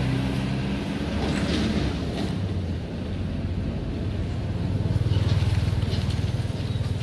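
A motor vehicle's engine running, its steady low hum fading after about two seconds, then a rougher rumble swelling again from about five seconds in.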